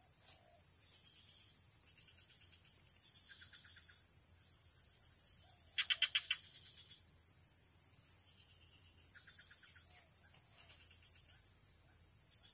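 Outdoor chorus of frogs and insects: a steady high insect drone, with short trains of rapid pulsed calls every few seconds and a louder burst of four quick calls about six seconds in.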